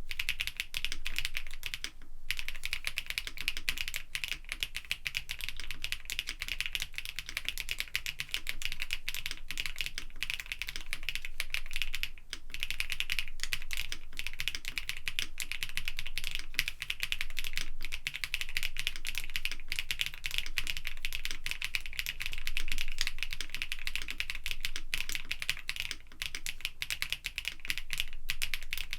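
Continuous fast typing on a KBDfans D60 Lite mechanical keyboard with factory-lubed HMX Pado linear switches, a polycarbonate plate and cmk keycaps: a dense run of keystrokes, with brief pauses about two seconds and about twelve seconds in.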